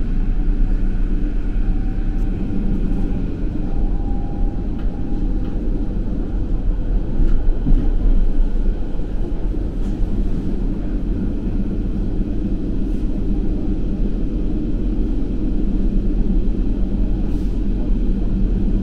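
Berlin S-Bahn electric train running with a steady low rumble.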